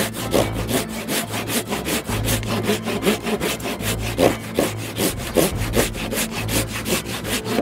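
Large Japanese pull saw crosscutting a dry, seasoned Douglas fir 6x6 by hand in fast, even strokes.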